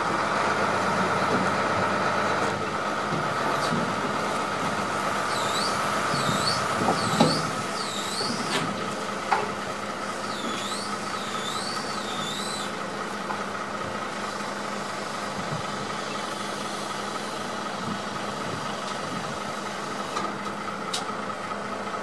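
Crane truck's engine running steadily with a high steady whine as its crane lifts the load, easing off after about two-thirds of the way. A bird calls in two runs of repeated swooping whistles, and there are two sharp knocks, the first the loudest moment.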